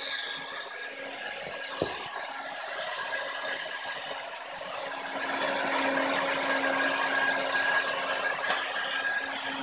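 Automatic hot-air welding machine running as it travels along a linoleum floor seam, welding in a rod: the hot-air blower's steady hiss with a steady motor hum and the drive's mechanical running underneath, and one short click about two seconds in.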